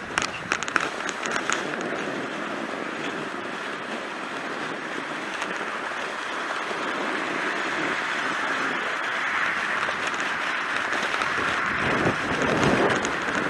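Steady vehicle noise mixed with wind on the microphone while travelling along a packed snow trail. A few sharp clicks come in the first second or so, and a louder low patch follows near the end.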